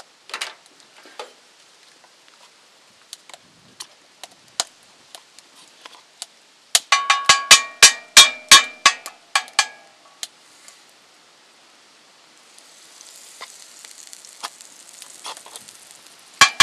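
A plastic spatula knocking and scraping against a hot cast-iron skillet: a quick run of sharp, ringing taps about seven seconds in, and more near the end. Between them a faint hiss rises as butter starts to sizzle in the pan.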